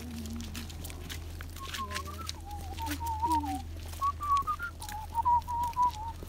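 A person whistling a short wavering tune in several phrases that step up and down in pitch, with scattered clicks.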